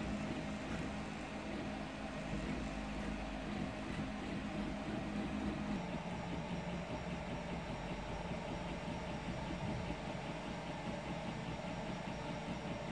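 Home-built CoreXY 3D printer running a print: its stepper motors whine in a few steady tones that shift as the print head changes moves, over the steady hum of its cooling fans.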